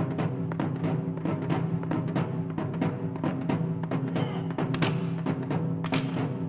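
Film score music with rapid drum hits over held low notes.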